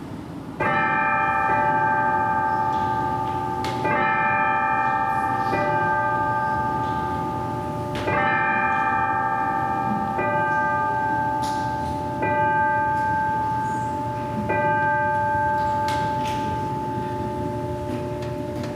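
Altar bell struck about five times in a slow, uneven series, each stroke ringing on clearly and overlapping the last. It marks the elevation of the chalice just after its consecration.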